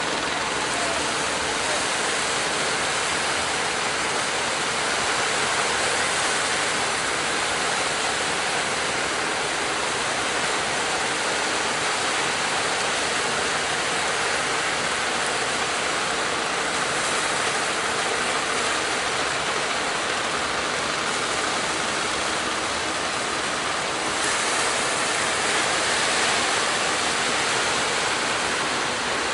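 Surf breaking and washing ashore, a steady rushing noise with no pause, swelling slightly for a few seconds near the end.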